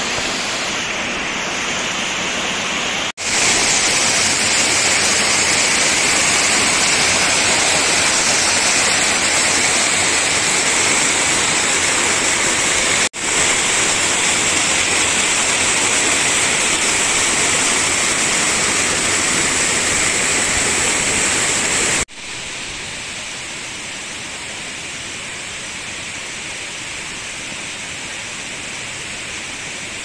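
Water rushing and splashing down a waterfall's rock steps, a steady, even roar. It breaks off for an instant about three seconds in and again about thirteen seconds in, and about 22 seconds in it drops to a quieter, more distant rush.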